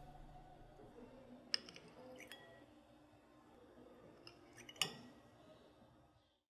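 A few light clinks of a metal spoon against a ceramic bowl, the sharpest one about five seconds in, over a faint steady background.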